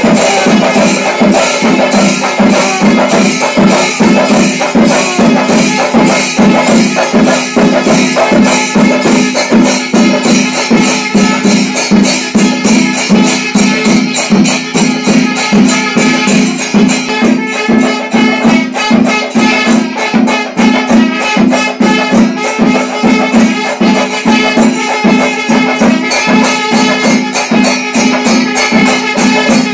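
Traditional Kerala temple percussion ensemble playing loud and without a break: dense, rapid drum strokes with jangling metal percussion over a steady low drone.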